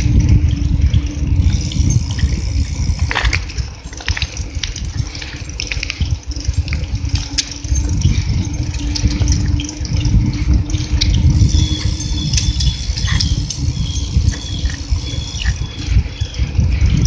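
Wind buffeting a phone microphone while riding a bicycle: a heavy, fluttering low rumble, with scattered clicks and rattles from the moving bike and its handling.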